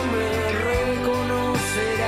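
Music from a Spanish-language song: a held melody line over a steady bass and soft drum hits, with no words sung.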